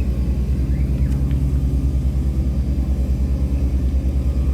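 Tugboat's Cummins diesel engine running steadily under load while towing a barge against the current: a low, even throb that pulses several times a second.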